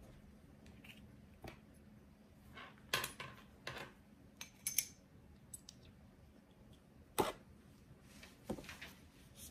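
Scattered light clicks and knocks from a KME guided knife sharpening system and its stones being handled while the stone is changed to the 1500 grit, the sharpest about three, five and seven seconds in.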